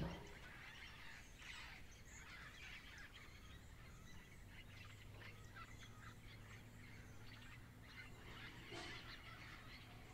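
Faint outdoor ambience with scattered short bird chirps and calls. A low steady hum comes in about halfway through.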